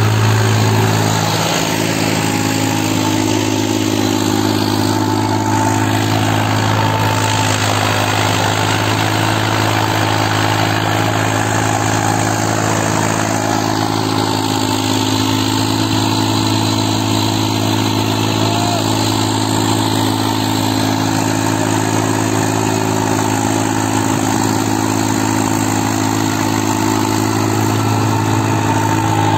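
Deutz-Fahr AgroMaxx 4045E tractor's diesel engine running steadily under load while pulling a tine cultivator through dry soil.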